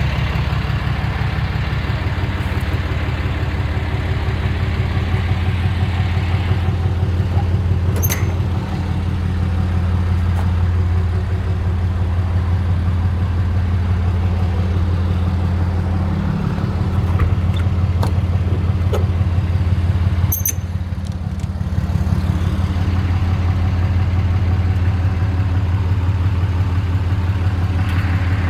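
Diesel engine of a Dodge service truck idling steadily with an even low pulsing, its DPF and EGR deleted; a couple of brief clicks twice.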